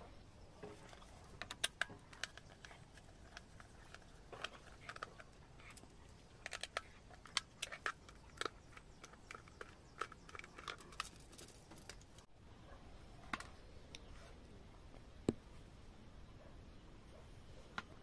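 Small screwdriver backing screws out of a plastic power strip's back cover: faint, irregular clicks and ticks of the metal tip on the screws and plastic case as it is turned and handled, thinning out in the second half with one sharper click.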